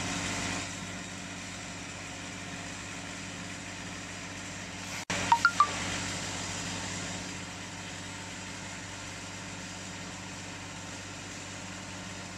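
Steady hum of running machinery in a cooling pad production hall: a low buzz with a hiss over it. About five seconds in, the sound cuts out for an instant, then three quick, high clinks.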